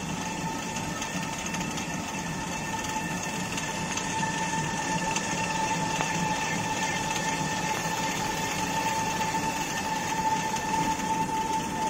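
Traditional Ladakhi water-driven stone flour mill (ranthaq) running, its upper millstone turning and grinding grain. A steady rumbling clatter with a constant high tone running through it, growing a little louder after a few seconds.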